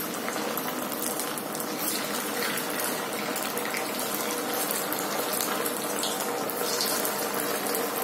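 Sabudana vadas deep-frying in hot peanut oil: a steady sizzle with many small crackles as more vadas are dropped into the oil.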